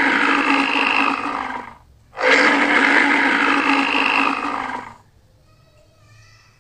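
Polar bear roaring twice: two long roars, about two and a half seconds each, with a short break between them.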